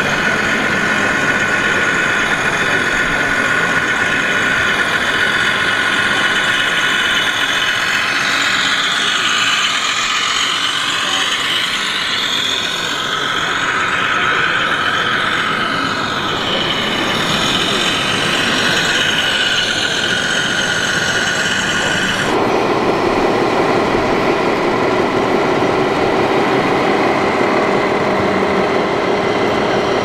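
Scale RC trucks driving: a steady high whine from their electric drives, with pitches gliding up and down past each other in the middle as they speed up and slow down. About two-thirds of the way through it switches abruptly to a lower, steadier engine-like running sound.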